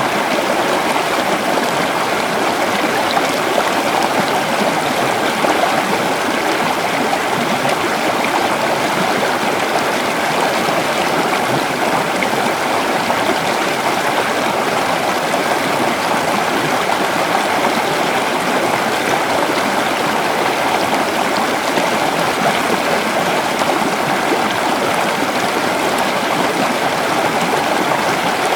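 River water flowing steadily over rocks, a continuous even rush with light gurgling.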